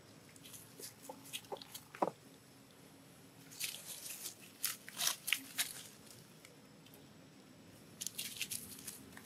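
Dry leaves crackling and rustling as macaques scuffle on the ground, in two spells of crisp crackles a few seconds in and near the end, with a few single sharp clicks before them.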